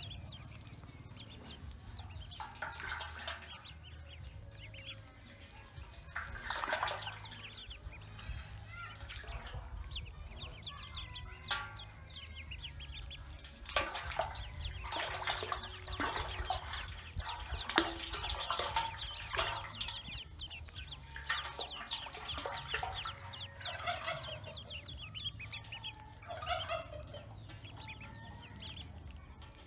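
A brood of Pekin ducklings peeping, many short high calls overlapping, busiest about halfway through.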